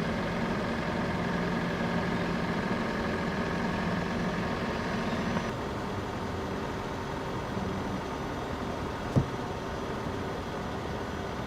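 Steady vehicle engine hum with road noise, its low drone fading about halfway through; a single sharp knock about nine seconds in.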